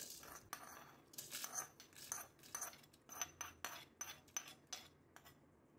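Steel spoon scraping and tapping inside a small pan as roasted coriander seeds, cumin and dry red chillies are scraped into a plastic mixer jar: a run of faint, short scrapes and clicks.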